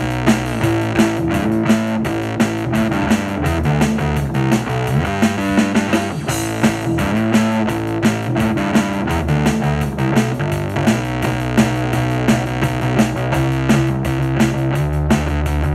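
Music led by a synth bass holding long low notes that change every second or two, over a steady regular pulse.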